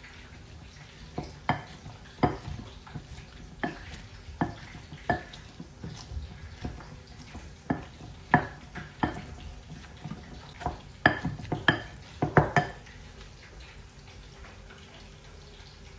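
A wooden pestle pounding and mashing boiled cauliflower in a glass bowl: irregular knocks about one a second, with a quicker run of knocks about three quarters of the way through. The knocking stops a few seconds before the end.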